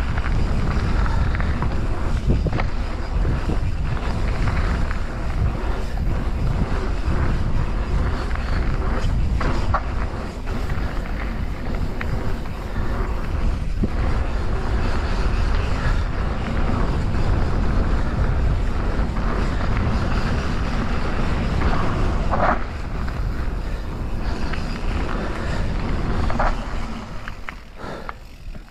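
Wind buffeting the microphone of a camera on a mountain bike rolling down a gravel-and-dirt trail, with tyre noise and scattered clicks and knocks from the bike over bumps. The noise drops near the end.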